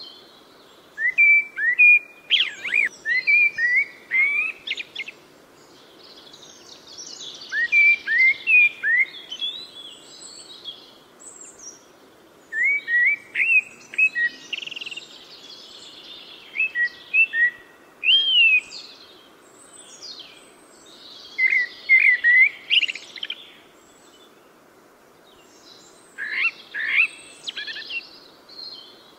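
Birds chirping in repeated bouts of short whistled notes, several quick calls every few seconds, over faint steady background noise.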